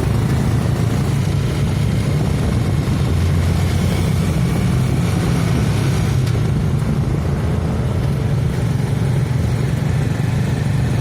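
Motorcycle engine of a Manila tricycle (a motorcycle with a passenger sidecar) running steadily, a low, even engine drone.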